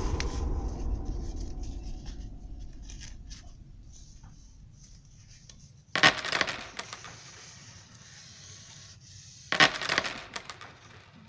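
Low rustling and handling of folded paper on a table, fading over the first few seconds. Then two sharp metallic clinks about three and a half seconds apart, each trailing off in a few smaller clicks over about a second.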